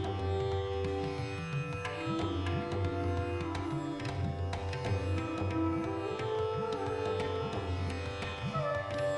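Indian-style instrumental background music: a plucked string melody over a steady low drone.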